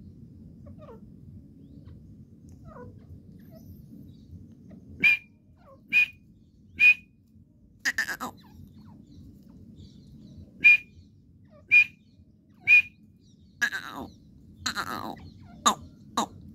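A teetar partridge calling. After a quiet start over a low hum, loud, sharp, high calls come about a second apart in short runs of three. Near the end come a couple of longer, falling calls and then quicker sharp calls.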